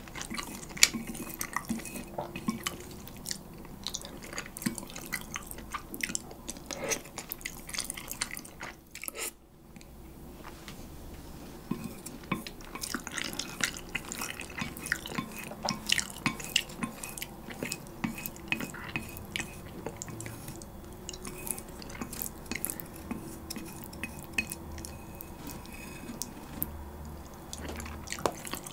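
Close-miked eating sounds: wet chewing and smacking of galbi-flavoured bibim-myeon noodles, with chopsticks clicking and scraping on a ceramic plate as the last scraps are picked up, making many short sharp clicks.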